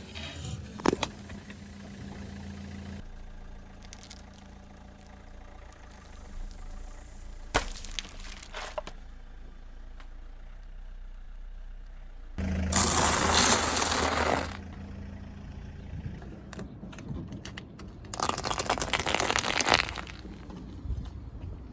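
A car engine idling with a steady low hum, joined twice by about two seconds of loud crunching and crushing as the car rolls over objects, with a single sharp crack a little before.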